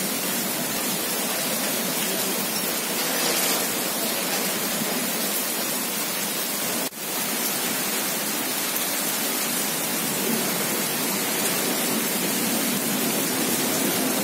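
Heavy rain falling, a steady dense hiss that breaks off for an instant about halfway through.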